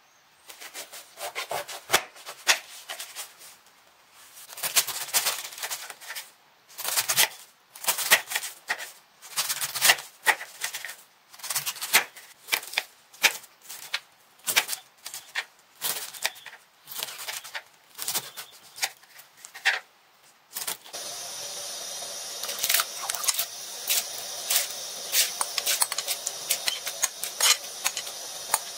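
A chef's knife slicing a head of cabbage on a wooden cutting board, in runs of strokes about one a second, each cutting through and hitting the board. About twenty seconds in this gives way to a steady hiss with scattered pops as rice cooks down in its pot.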